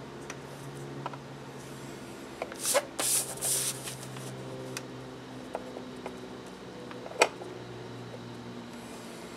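Bone folder scoring paper along the grooves of a scoring board: a few short scrapes about three seconds in and a sharp click about seven seconds in, over a steady low hum.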